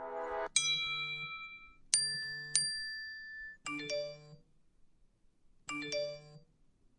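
Text message notification tones: a series of short, bell-like chimes, each a quick cluster of a few high notes. One chime rings about half a second in, two dings follow about two seconds in, and two more short note flourishes come near four and six seconds in.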